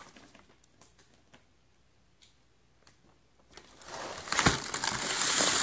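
Crinkling and rustling handling noise. A few faint clicks come first, then from about two-thirds of the way in a louder crinkling rustle sets in, with one sharp knock in the middle of it.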